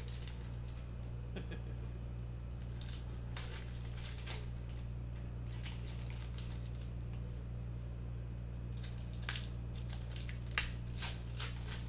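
Foil trading-card packs being handled and opened by hand: scattered short crinkles and snips of the foil wrappers, over a steady low electrical hum.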